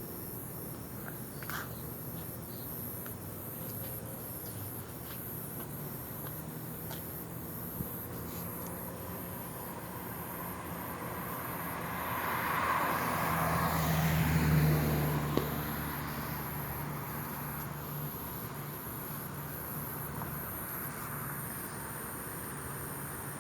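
Crickets and other night insects chirping steadily, with a vehicle passing by midway, swelling and then fading over a few seconds.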